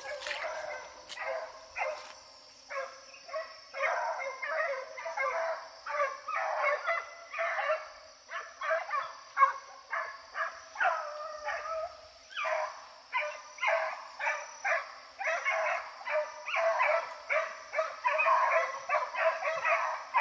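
Hunting dogs baying over and over, calls coming in quick succession, while in chase of a paca.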